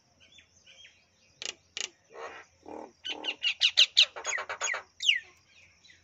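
Common myna calling at close range: a varied run of harsh and gurgling notes, quickening into a fast series of repeated notes about three seconds in and ending with a falling whistle near the end.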